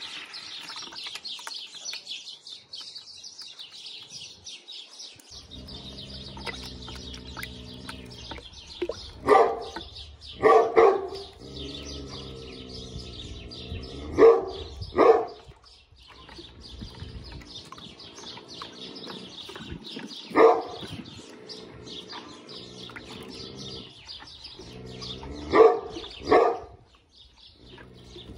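A dog barking, mostly two quick barks at a time, repeated every few seconds. Birds chirp during the first few seconds.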